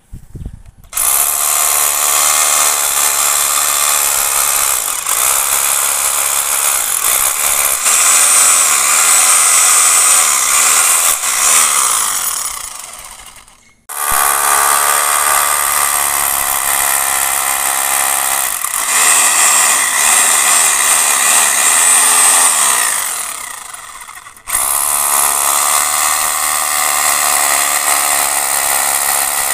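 Rotary hammer drill boring into concrete in three long runs, the first two tailing off before the next starts abruptly. It is drilling injection holes for polyurethane waterproofing grout.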